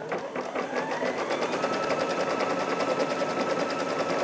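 Brother Luminaire embroidery machine stitching out a straight-stitch quilting pattern in the hoop. Its motor whine rises over the first second or two as it comes up to speed, then holds steady over rapid, even needle strokes.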